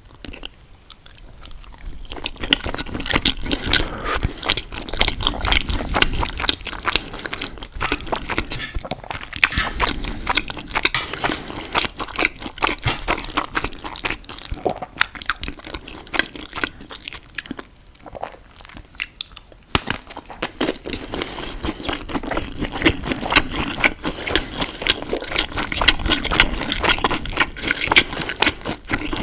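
Close-miked chewing and wet mouth sounds of someone eating pasta and sausage: a dense run of small clicks and smacks, with a short lull a little past halfway.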